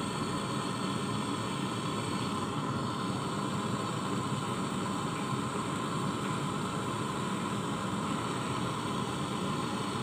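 Gas brazing torch burning with a steady, even hiss while its flame heats a copper pipe joint at a refrigerator compressor.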